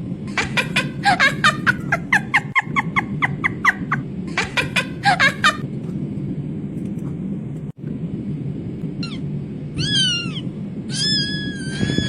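A domestic cat vocalizing: a quick run of short chirps, about four a second, for the first few seconds, then another short run. After a pause come two falling meows and one longer, drawn-out meow near the end.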